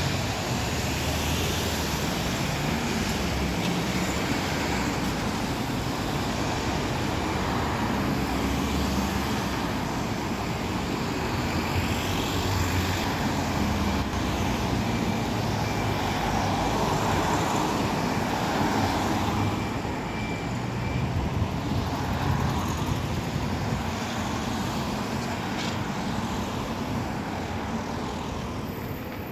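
Double-decker bus engines running and pulling past among passing cars, a continuous low engine drone over road noise that swells a little past the middle.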